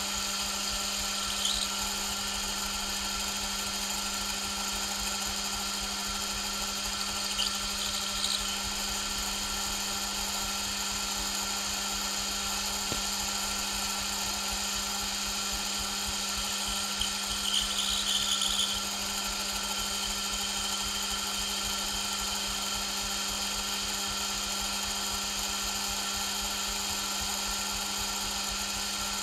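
Metal lathe running steadily while its tool turns an aluminium workpiece: a constant hum with many steady tones, broken by a few brief higher-pitched bursts from the cut, about a second and a half in, around eight seconds and around seventeen to eighteen seconds.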